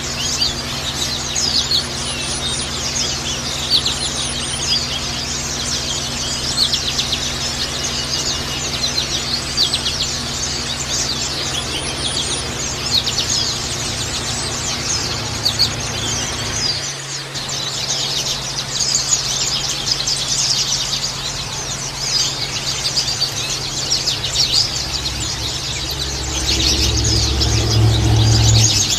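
White-eyes (pleci) singing, a dense, unbroken stream of rapid high chirps and twitters, the kind of lure song played to set other white-eyes singing. A low hum runs underneath and swells near the end.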